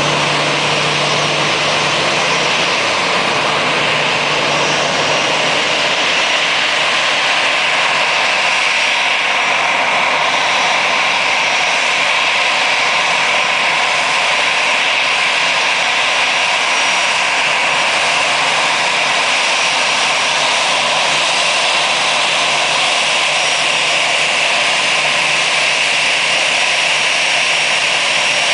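Airbus A320 turbofan engines running at taxi power: a steady rushing noise with a thin, high, constant whine above it.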